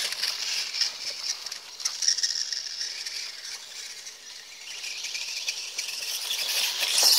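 Losi Promoto-MX electric RC motorcycle riding across grass, its electric motor giving a high, hissing whine. Loud at first, it fades as the bike moves off and swells again near the end as it comes back close.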